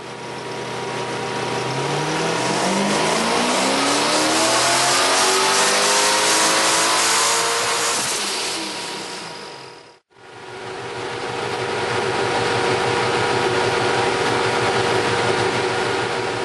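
ProCharger-supercharged GM LS V8 on a chassis dyno making a full-throttle pull, its note rising steadily for several seconds before the throttle lifts. After a short cut, the engine runs at steady revs.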